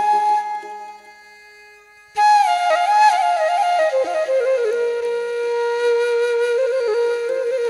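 Background music: a solo flute melody. A note fades away at the start, then after a short pause the flute comes back in about two seconds in with an ornamented phrase that settles onto a long held note.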